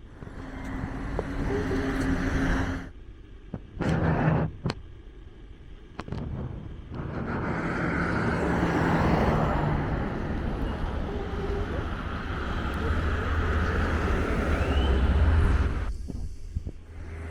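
Motor vehicle traffic: engines running and vehicles passing, with a dip in level a few seconds in and then a long, steady rise of engine hum and road noise through most of the rest.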